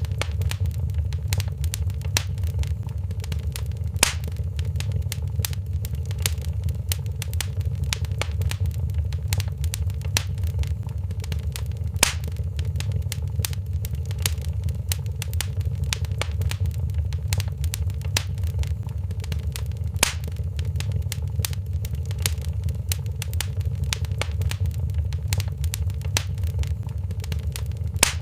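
Wood fire crackling in a fireplace: a steady low rumble under a constant scatter of small crackles, with a louder single pop about every eight seconds.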